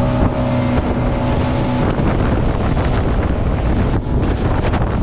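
Motorboat running at speed: a steady engine hum under loud wind buffeting the microphone and water rushing from the hull's spray. The engine's tone fades about two seconds in, leaving mostly wind and water noise.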